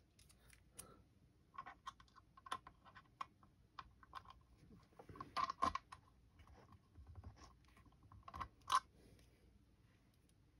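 Light, scattered metallic clicks and taps of small hand tools being handled: a hex driver bit and adapter being fitted into a small torque-limiting driver, with one sharper click about three quarters of the way through.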